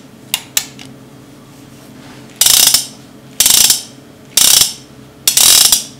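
All-steel Hege Uberti 1873 Single Action Army blank revolver having its hammer cocked four times, about a second apart. Each pull is a quick run of metal clicks. Two lighter clicks come first.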